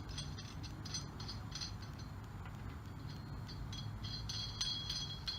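A hand socket ratchet being worked on the Jeep's wheel lug nuts: short runs of rapid high clicking with a metallic ring, a few runs each second.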